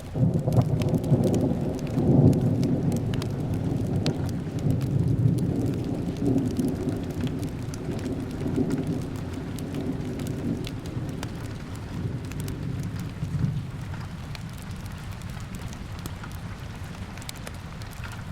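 A long roll of thunder breaks in suddenly and rumbles low, peaking about two seconds in and fading away over some fourteen seconds. Steady rain runs beneath it, with the light crackle of a wood fire.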